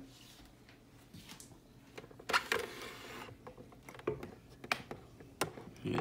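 Handling sounds from a switched-off plastic table fan being moved and tipped to show its underside: a brief scrape about two seconds in, then a few sharp clicks and knocks.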